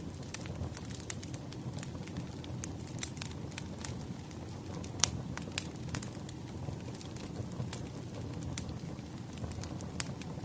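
Wood fire crackling: a steady low rumble with irregular sharp pops and snaps, the loudest pop about five seconds in.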